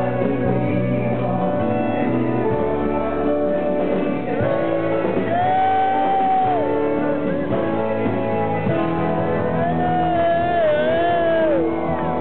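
Live band playing, with guitars and a lead singer who holds two long, wavering notes, the second near the end.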